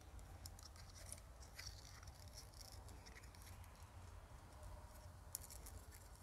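Near silence with faint scattered clicks and rustles of a plastic trimmer spool and nylon trimmer line being handled, and one sharper click a little past five seconds in, over a low steady hum.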